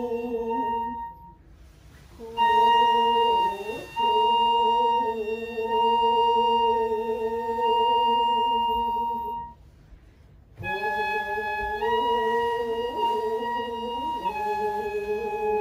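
Ryuteki, the Japanese gagaku transverse bamboo flute, playing a slow melody of long held notes, with two short pauses for breath and a few steps in pitch near the end.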